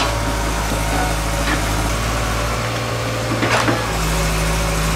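Excavator's diesel engine running steadily, its note changing about four seconds in, with a couple of short knocks.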